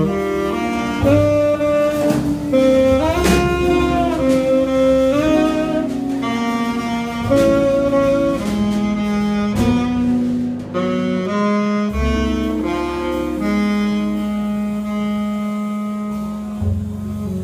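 Jazz quintet playing live: a saxophone carries a melodic line of held and sliding notes over double bass.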